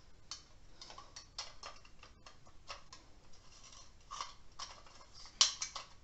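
Irregular light clicks and taps of a battery LED votive candle and its base being handled and fitted into the bottom of a small lantern, with one sharper click shortly before the end.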